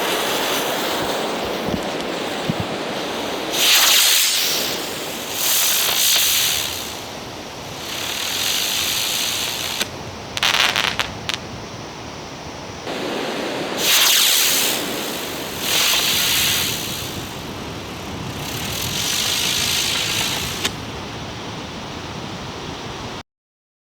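Spinning helicopter fireworks hissing, their jets swelling and fading in a string of loud whooshes. A short burst of crackling comes about ten seconds in. The hissing cuts off suddenly near the end.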